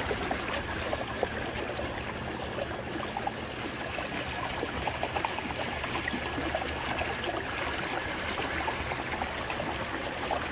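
Steady rush and splash of water along a fishing kayak's hull as it runs at full throttle under an electric outboard, about 5.5 mph.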